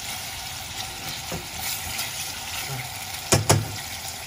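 Chunks of beef sizzling in hot olive oil in a stainless steel pot while being stirred with a plastic spatula, with two sharp knocks against the pot about three and a half seconds in.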